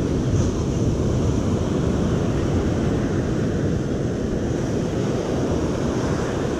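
Ocean surf breaking and washing up a sandy beach, mixed with wind rumbling on the microphone, as one steady noise.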